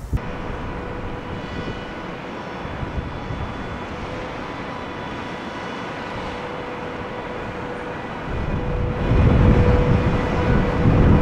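Boeing 747 jet engines running with a steady whine over a broad rush of engine noise. About eight seconds in, a louder low rumble builds up and takes over.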